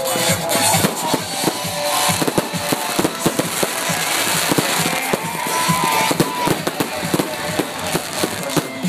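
Fireworks going off in a rapid, continuous series of bangs and crackles, with music playing underneath.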